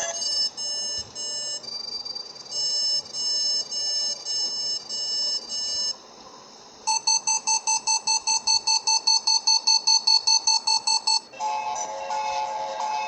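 Electronic emergency-alert tones of an EAS-style alarm: a run of about eight multi-pitched beeps, a brief drop, then a fast pulsing alarm tone at about five pulses a second for some four seconds. Near the end it switches to a steady held tone.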